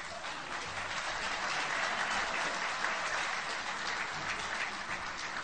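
Audience applauding, swelling over the first couple of seconds and then slowly easing off.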